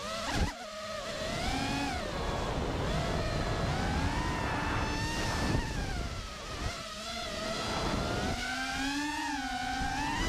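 FPV freestyle quadcopter's brushless motors and propellers whining, the pitch sliding up and down constantly as the throttle changes through the maneuvers, over a rumble of wind on the onboard microphone. A short sharp burst about half a second in.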